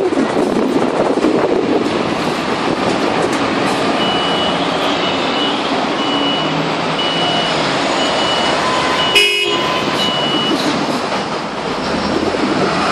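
Fire engine's diesel running as the truck moves off slowly. A high warning beeper sounds in a steady run of short beeps through the middle, and a short sharp toot comes about nine seconds in.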